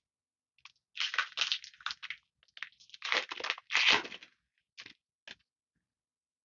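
Foil wrapper of a Magic: The Gathering booster pack crinkling and tearing in a run of rustling bursts as it is ripped open. After it come two short faint crinkles.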